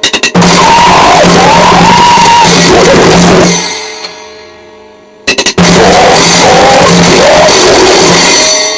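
Noisecore music: two short blasts of distorted noise with drums and vocals, each opened by a quick few clicks of a drum count-in. The first cuts out about three and a half seconds in and rings away before the second starts a little after five seconds.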